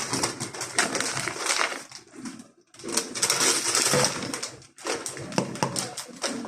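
Plastic food packaging being torn open and crinkled by hand: a run of dry crackles and sharp clicks, with a short pause about halfway through.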